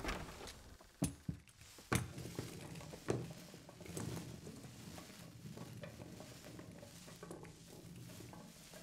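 A cylindrical bomb knocking and clattering several times as it is thrown and rolls across a floor, then its lit fuse hissing and crackling steadily.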